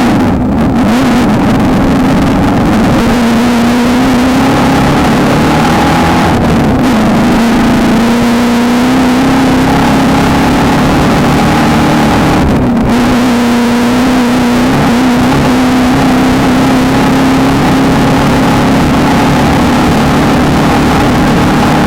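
Off-road race car's engine running hard under load over a constant rush of noise, its pitch easing and lifting slightly, with brief dips about six and thirteen seconds in.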